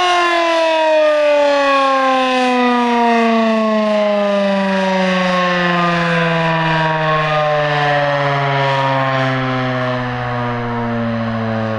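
Werden Electric P-127 outdoor warning siren winding down after its full-alert steady tone: the rotor is coasting to a stop, so the loud wail slides slowly and smoothly down in pitch.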